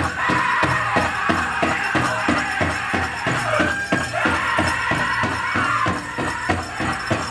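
Powwow drum group performing a song: a big drum struck in a fast steady beat, about four beats a second, with high-pitched singing carried over it.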